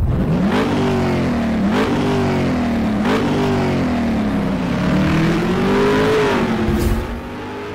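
Motorcycle engine revved in three quick throttle blips, then a longer, slower rise and fall in revs, easing off about seven seconds in.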